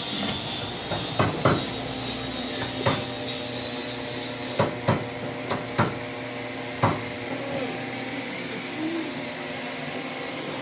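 Irregular hammer blows on wood in a carpentry workshop, about eight knocks, most of them in the first seven seconds. A steady machine hum runs underneath.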